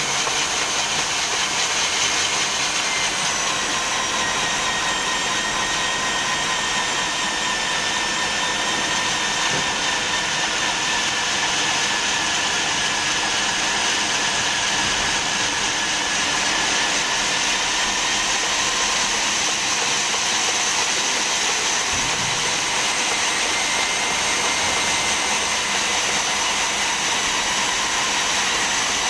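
Portable electric core drill running steadily while boring through a concrete slab: a high motor whine over a grinding rush, its pitch sagging slightly under load for a while before picking back up.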